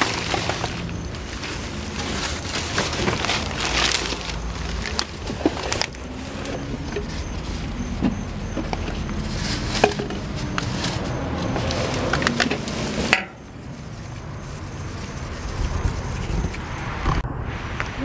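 Plastic garbage bags rustling and crinkling as a gloved hand rummages through trash in a dumpster, with scattered sharp clicks and knocks. The rustling cuts off suddenly about thirteen seconds in, and the rest is quieter.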